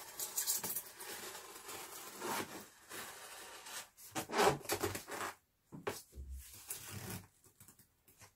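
Rubbing and scraping against a styrofoam box sealed with packing tape as it is worked open: a steady scrape for about four seconds, then a run of short, sharper scrapes with a dull knock in the middle.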